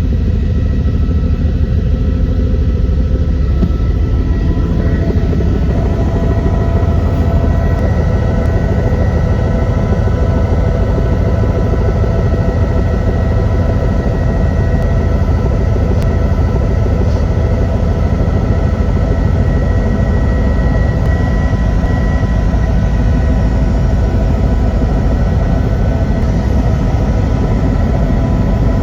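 Helicopter running with a loud, steady low rumble and several constant whining tones that grow stronger about five seconds in.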